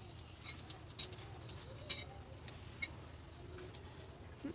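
Quiet cooking at a wood-fired clay stove: a few faint clicks and small crackles, from the fire and the metal spatula on the griddle, over soft low cooing-like sounds.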